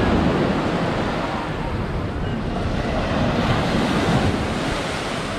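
Small ocean waves breaking close by and washing up over the sand, surging at the start and again a few seconds in, with wind rumbling on the microphone.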